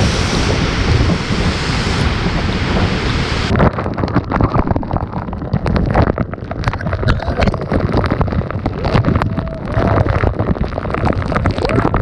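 Rushing water of a large waterfall, a dense steady roar. About three and a half seconds in it changes abruptly to a lower rumble, with wind buffeting the microphone and frequent knocks.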